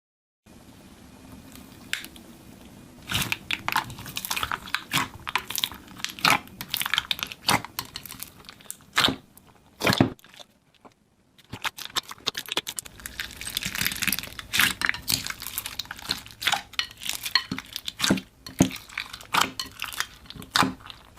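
Crunchy slime being squished, making a dense, irregular run of crackles and pops. The sound stops for about a second near the middle, then starts again.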